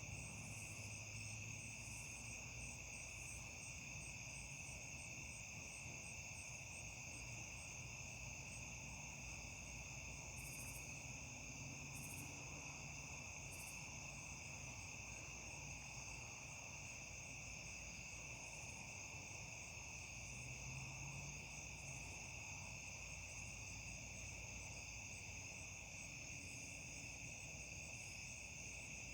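Crickets trilling in a steady, unbroken night chorus at two high pitches, with a few brief higher chirps around the middle.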